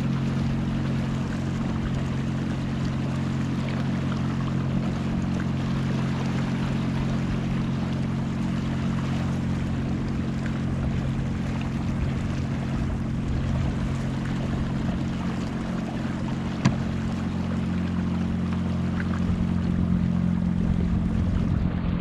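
Minn Kota electric motor of an Old Town Sportsman 106 kayak running at cruising speed with a steady hum, water rushing and splashing along the hull through the chop. A single sharp knock about two-thirds of the way through.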